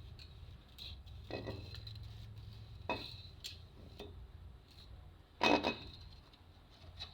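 Thin wire being worked between the glass layers of an LCD panel: a few scattered light clinks and ticks of wire and glass, the loudest about five and a half seconds in, over a low steady hum.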